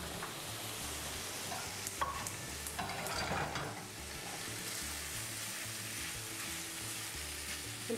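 Thin slices of chicken sizzling in hot oil in a frying pan as they are stirred with a spatula, with a few short scrapes of the spatula against the pan.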